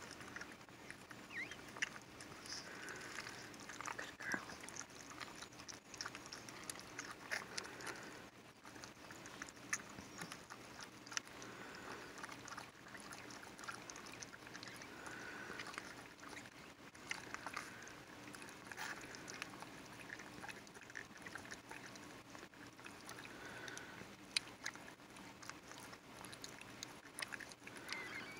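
Mother dog licking her newborn puppy: faint wet licking and smacking clicks, with a few short, soft squeaks.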